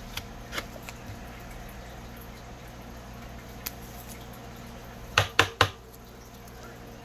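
Three sharp clicks in quick succession just after five seconds in, over a steady low hum, with a few fainter clicks in the first second.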